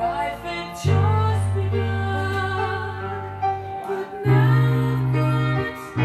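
A song with a singer and instruments, with long held bass notes, played through a home-built Honey Badger Class AB power amplifier and its speakers as a listening test.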